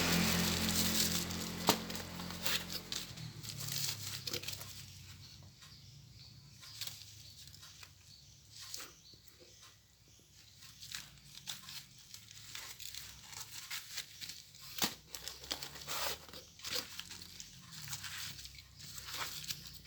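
Packaging being unwrapped by hand: plastic or paper crinkling and tearing in scattered rustles and crackles. A low rumble fades away over the first few seconds.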